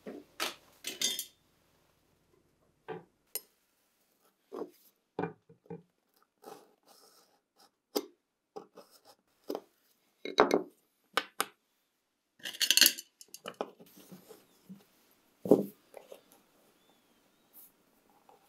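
Scattered clicks, taps and light knocks of metal against metal and wood as an old knife's brass bolsters and wooden handle are pried apart by hand, with one longer scrape a little past the middle.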